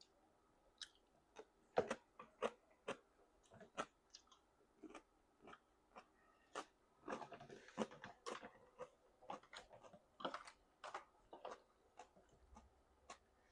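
A person chewing a mouthful of jajangmyeon (black-bean sauce noodles) close to the microphone: a run of soft, wet mouth clicks and smacks, with a short noisier stretch about halfway through.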